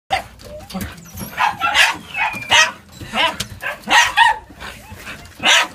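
A puppy barking in a string of short, high yaps, sometimes two in quick succession.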